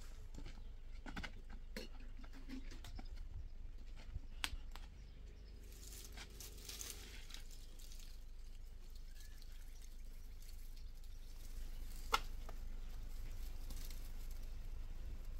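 Plastic shade netting rustling as it is pulled and gathered by hand, with scattered light clicks and taps, a longer rustle about six seconds in, and one sharp click near the end.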